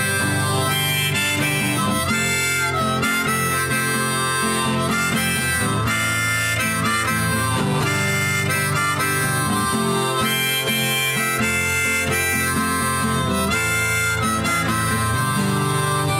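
Background music: an instrumental passage of a song, with no singing.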